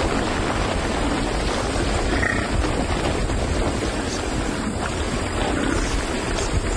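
A large herd of African buffalo moving together: a steady, dense low rumble with animal calls mixed in.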